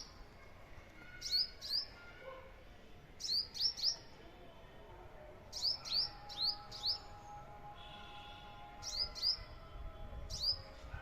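Sparrow chirping: short, high cheeps, each falling quickly in pitch, given in little clusters of two to four with pauses between.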